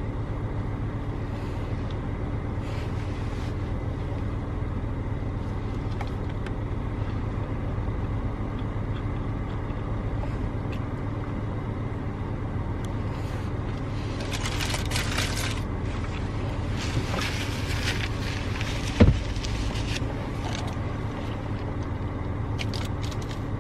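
A car's engine idling, a steady low hum. A few short rustling bursts come in about two-thirds of the way through, with a single sharp knock just after.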